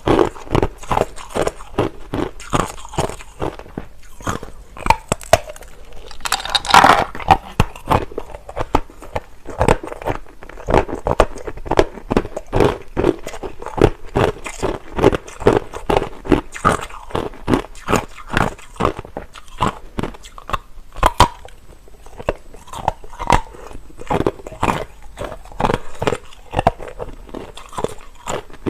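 Clear, hard crushed ice being bitten and chewed: a continuous run of sharp crunches in quick succession, with one especially loud crunch about seven seconds in.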